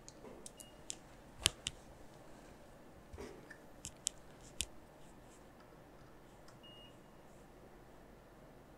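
Light clicks and taps from handling multimeter test probes and their leads at the bench: a cluster in the first two seconds, the sharpest about one and a half seconds in, and another group around four seconds in. A faint short beep sounds near the end, over quiet room tone.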